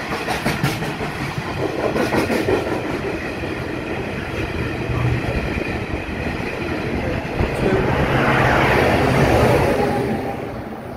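Freight train hopper wagons rolling past at close range, with a steady rumble and bursts of clicking as the wheels cross rail joints. The rumble grows louder late on, then drops away shortly before the end.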